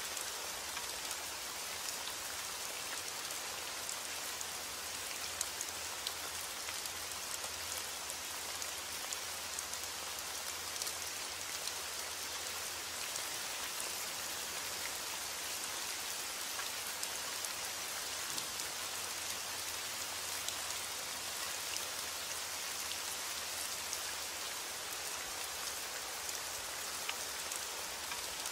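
Steady rain falling: an even hiss with scattered small ticks of drops.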